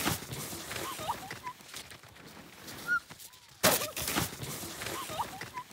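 A sledder crashing and tumbling in snow: scattered thuds and snow noise, with a short loud burst about three and a half seconds in and another near the end.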